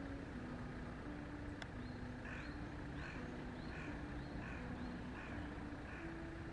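A bird calling about seven times, roughly one short call every two-thirds of a second, over soft background music with a slow melody of held notes. A single sharp click comes just before the calls.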